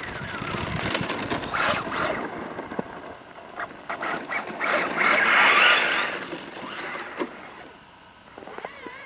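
Electric 1/10 scale Ford F-150 Raptor RC truck with a brushless motor driving hard on packed snow: a high-pitched motor whine that rises and falls with the throttle over the hiss of its tyres on the snow, loudest about five to six seconds in.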